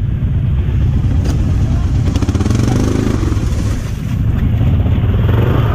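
ATV engine running steadily, with no clear revving.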